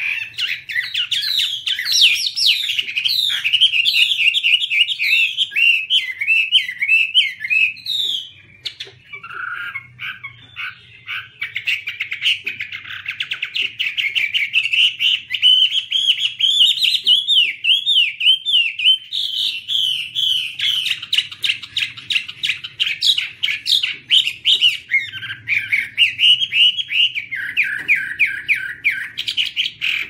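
Chinese hwamei (Garrulax canorus) singing a long, loud, varied song of rapid gliding phrases and repeated notes. It is briefly softer and lower about nine seconds in.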